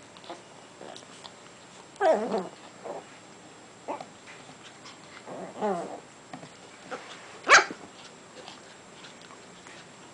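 Japanese Chin dogs making play noises while mouth wrestling: two drawn-out growls that fall in pitch, about two and five and a half seconds in, a few short grumbles between them, and one short sharp bark about seven and a half seconds in, the loudest sound.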